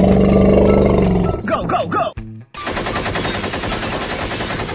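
A long, loud, low animal call with a strong pitch for the first second and a half, then a few short gliding squeaks. From about halfway through, a rapid burst of automatic machine-gun fire sound effects.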